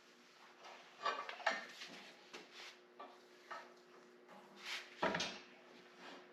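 A few scattered light knocks and clatters, as of objects being handled, over a faint steady hum.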